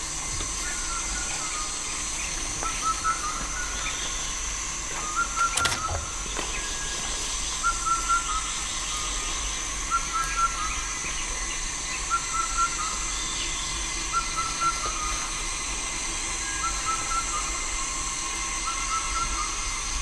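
Tropical rainforest ambience at dusk: a steady high insect drone, with a short chirping call repeating about every two seconds over it. A single sharp click about six seconds in.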